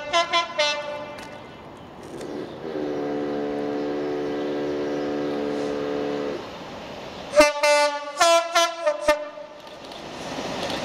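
Class 66 diesel locomotive's two-tone horn: a quick run of short blasts, a lower steady note held for about four seconds, then another burst of about five short blasts. Near the end, the rumble of the approaching train builds.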